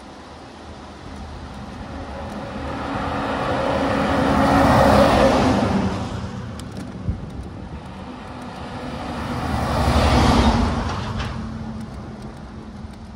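Two motor vehicles passing one after another, each rising and then fading, the first loudest about five seconds in and the second about ten seconds in, over steady road and wind noise from the bicycle.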